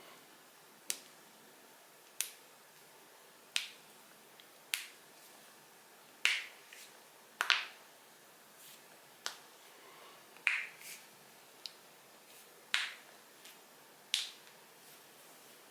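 Joints being cracked one after another: about a dozen sharp pops, roughly one every second or so, some followed by a short crackle.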